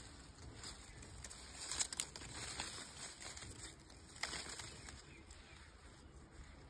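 Guava leaves and twigs rustling and crackling as a hand pushes through the branches, with a few sharper crackles about two seconds in and another just past four seconds.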